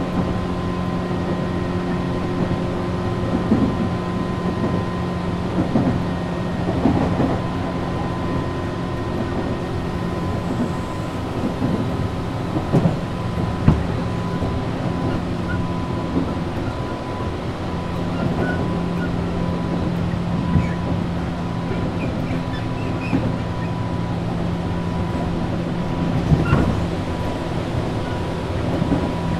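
Interior of a Tobu 8000-series electric train car running between stations: a steady rumble with a constant hum and whine, and wheels knocking over rail joints now and then.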